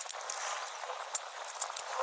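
Kitchen knife shaving kernels off a fresh corn cob, a rough scraping with scattered small clicks as blade and kernels hit the stainless steel basin.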